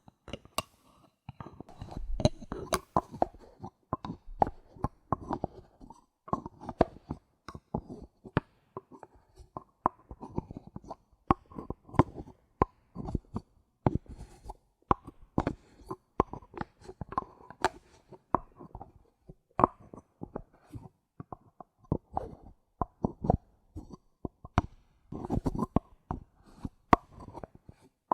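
Bottle caps being handled: a continuous run of irregular sharp clicks and taps, several a second.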